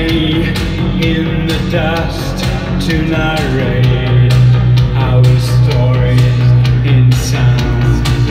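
A live band playing: a male voice singing over electric guitar, synthesizer, a sustained bass line and a steady drum beat.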